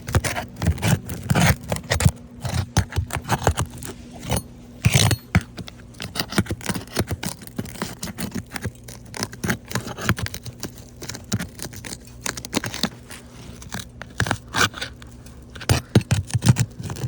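Irregular scraping and clicking of hands and a tool working a roof shingle loose, with many short knocks and scrapes.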